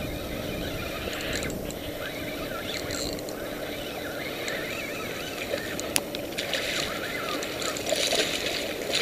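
Steady outdoor wind and water noise at the shoreline while a striped bass is played on rod and line, with a single sharp click about six seconds in. Near the end, the hooked striper splashes at the surface by the rocks.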